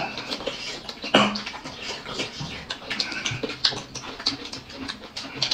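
Close-miked eating: chewing and lip-smacking mouth noises with many small wet clicks, and one louder sudden mouth sound about a second in.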